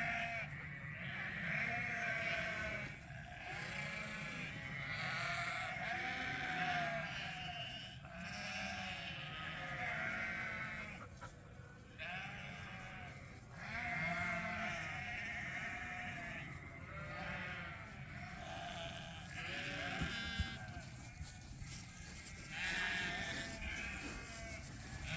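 A group of lambs bleating, many calls overlapping one after another.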